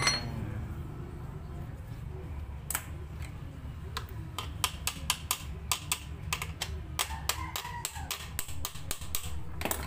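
Irregular sharp clicks and light taps of small hard parts as a plastic piece is pushed and fitted into a foot pump's release valve. The clicks start about three seconds in and come two to four a second until near the end.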